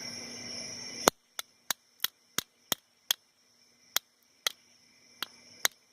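A bump hammer tapping a bump key in a five-pin Sesamee 551 brass padlock with spool and serrated security pins, trying to jar the pins to the shear line. There are about eleven sharp taps, coming about three a second at first and then more spaced out; the first tap, about a second in, is the loudest.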